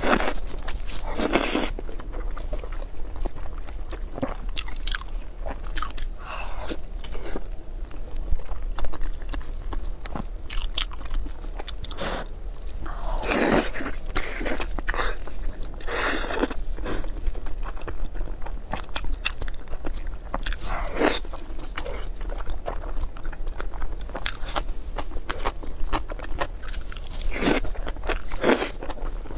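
Close-miked eating of braised beef tendon in chili sauce: irregular wet bites and chewing of the gelatinous tendon, with several louder bites spread through.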